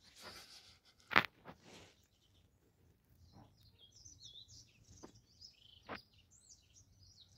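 Faint small birds chirping outdoors, a loose string of short high twittering calls through the second half, with a few soft clicks and one sharper knock about a second in.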